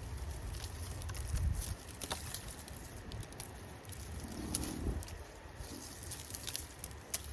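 Scattered light taps and rustles of garlic plants being pulled from the soil and handled, with a low rumble at times.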